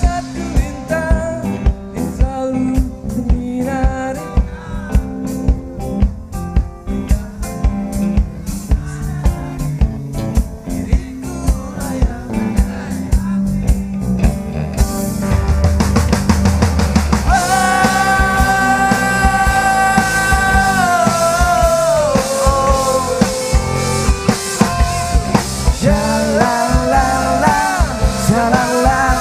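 A band playing an instrumental break with a drum kit keeping a steady beat. About halfway a fast drum fill leads into a long, held lead line that bends down in pitch.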